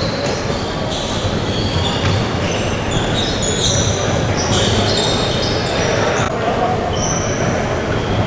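Basketball gym ambience: indistinct chatter of players and spectators, with scattered short, high-pitched sneaker squeaks on the hardwood floor.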